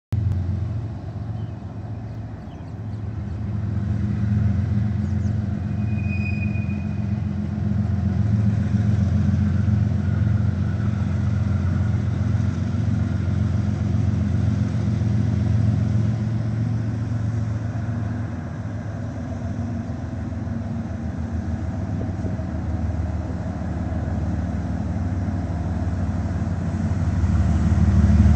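Diesel-electric freight locomotive approaching at low speed: a steady low engine drone that grows louder near the end as it draws close.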